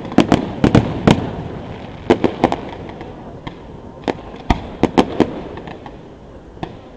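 Aerial fireworks shells bursting close by: sharp bangs in quick clusters, several in the first second, a few about two seconds in, another group around four to five seconds in and a single one near the end, over a steady rumble.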